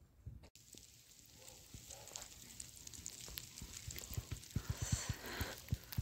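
Falling snow and ice pellets ticking and hissing on surfaces: a steady patter of tiny clicks that sets in about half a second in and grows denser toward the end, with a brief rushing swell about five seconds in.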